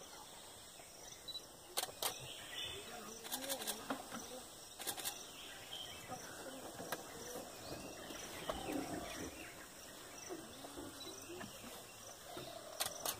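Faint forest ambience: insects chirring steadily, with a few sharp clicks about two, three to four, and five seconds in and again near the end. Faint low calls drift in the background.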